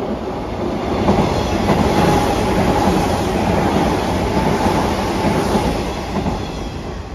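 Hanshin electric train moving past along the platform at close range, its wheels and running gear rattling on the rails. The sound swells over the first second or so, holds, then slowly fades toward the end.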